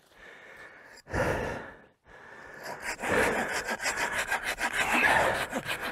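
Cheap hand pruning saw cutting a piece of dry dead wood: after a brief rustle, quick, even back-and-forth saw strokes start about halfway through and keep going.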